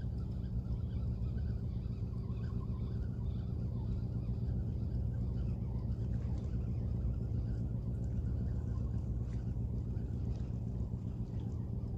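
Steady low engine rumble with a constant droning hum.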